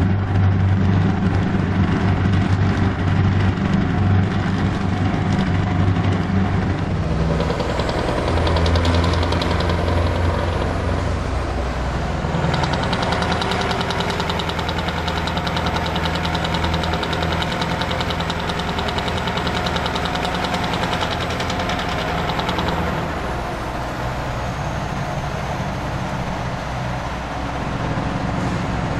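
Scania R500 V8 diesel with an open exhaust pipe, heard from inside the cab while the truck drives at steady speed: a deep, steady engine drone. The engine note changes about a quarter of the way in and again a few seconds later, then runs on steadily.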